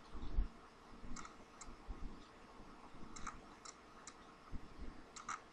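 Faint, irregular clicks and taps of a stylus on a tablet screen during handwriting, with a few soft low thumps in between.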